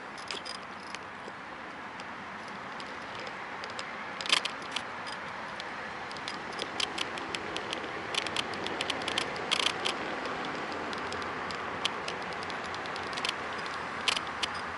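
Steady riding noise from a Kugoo V1 Plus, with irregular sharp clicks and squeaks from the phone holder as it works on its mount.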